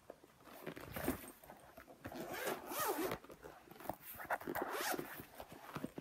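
Zipper being pulled around a trading-card album to open it, with rustling as the album is handled.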